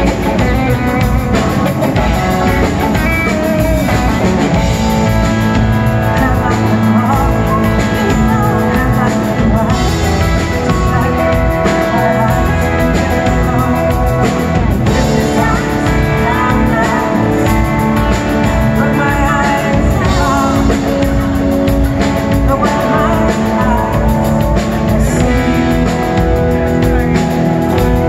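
Live rock band playing amplified: electric guitar, electric bass and drum kit, with a woman singing.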